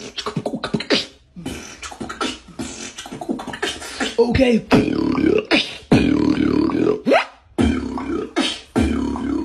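Human beatboxing: a quick run of sharp mouth-percussion hits for the first few seconds, then longer, deeper buzzing vocal bass sounds that waver in pitch, broken by short pauses.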